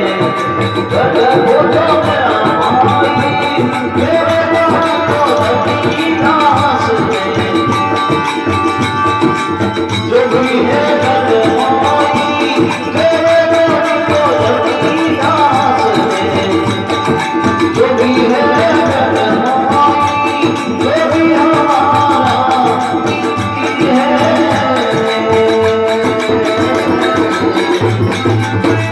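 Rajasthani folk devotional music (bhajan) playing continuously: a melody line over a steady hand-drum rhythm.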